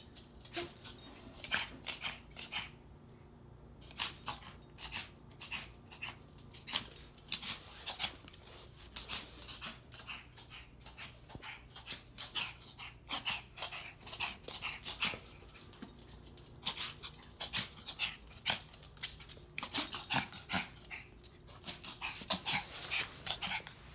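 Five-month-old puppy in a coughing spell: many short, harsh coughs in clusters, which the owner wonders may be the sign of a collapsed trachea.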